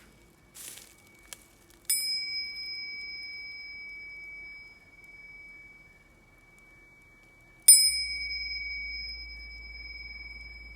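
A small metal bell rung twice, about six seconds apart; each stroke rings on one clear high tone that slowly fades. A brief rustle and a click come just before the first stroke.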